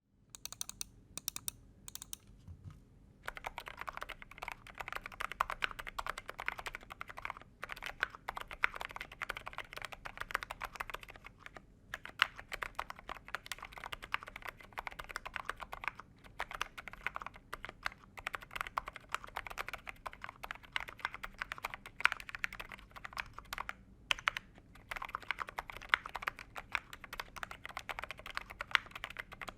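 Typing on a Monsgeek M2 mechanical keyboard fitted with Akko Haze Pink silent linear switches and double-shot ABS Cherry-profile keycaps. A few separate keystrokes come first, then fast continuous typing with a few short breaks.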